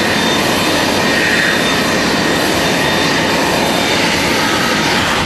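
Jet airliner engines running: a steady rushing noise with a faint high whine held over it.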